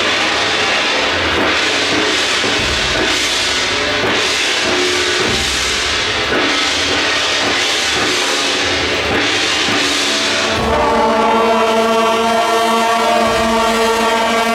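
Temple procession percussion: cymbals and gongs crashing about once a second over a dense din. About ten seconds in, a loud sustained horn-like tone begins and holds steady.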